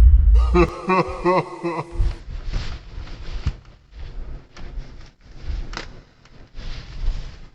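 Irregular rustling, crinkling and soft clicks from packaging and the guitar being handled as it is unwrapped. About half a second in, there is a short inserted sound effect lasting under two seconds, with a wavering, voice-like pitched tone.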